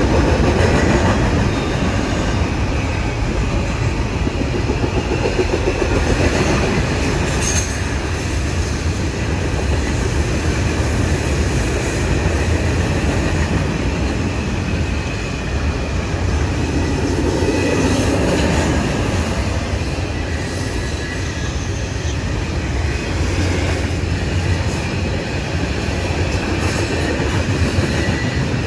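Double-stack intermodal container train rolling past, its well cars' wheels making a steady rumble on the rails, with faint wheel squeal now and then.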